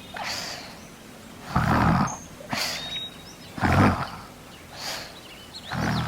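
Cartoon snoring sound effect of the sleeping hare: a loud rumbling snore on each breath in and a soft whistling hiss on each breath out, repeating about every two seconds. Faint birdsong chirps behind it.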